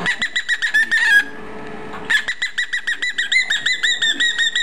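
Cockatiel chirping in fast series of short, arched, high notes, about six a second: a run of about a second, a brief pause, then a longer run.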